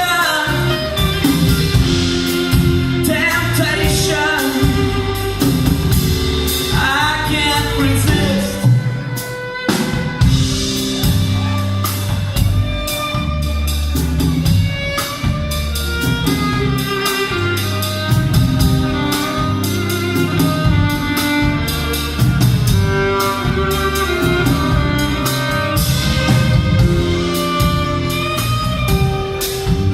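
Live band playing a song with drum kit: a singer's phrases over the first eight seconds or so, then an instrumental passage with a steady beat.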